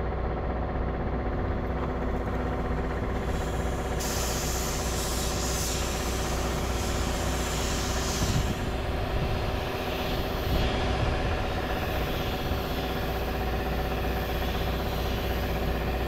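Air spray gun hissing as paint is sprayed, switching on sharply about four seconds in, over the steady hum of an engine running.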